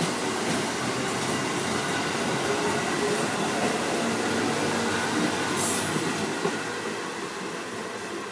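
Amtrak Amfleet passenger coaches rolling past close by, a steady rumble and hiss of steel wheels on rail. There is a brief sharp high hiss about five and a half seconds in, then the sound fades as the last car passes and moves away.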